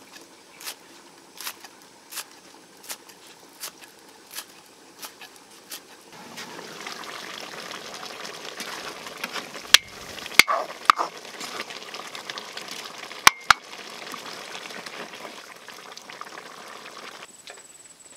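A kitchen knife chopping spring onions on a wooden stump chopping block: about eight strokes at an even pace, roughly one every 0.7 seconds. From about six seconds in, chicken in turmeric broth simmers in a steel wok, and a wooden ladle knocks sharply against the wok a few times, twice near the middle and twice a little later.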